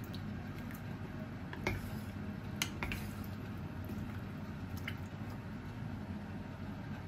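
Wooden spatula stirring chunks of potato, carrot and onion in water in an enamelled cast-iron pot: soft sloshing of the liquid with a few light knocks of the spatula against the pot or vegetables, the sharpest about two and a half seconds in.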